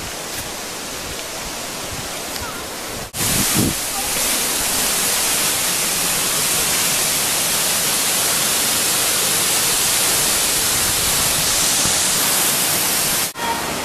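Waterfall: steady rushing water. About three seconds in there is a sudden cut, and after it the rush is louder and hissier.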